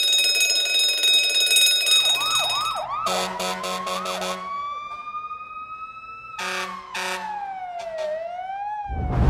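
Emergency vehicle sirens: a steady horn-like tone at first, then a fast yelping siren, short horn blasts, and a slow wailing siren rising and falling. A loud blast begins at the very end.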